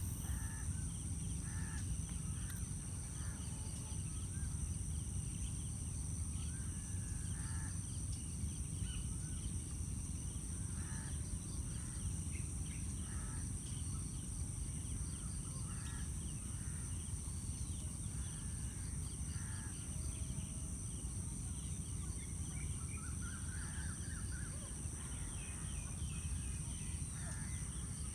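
Outdoor ambience: a steady high-pitched insect drone with short bird calls scattered throughout, over a constant low rumble.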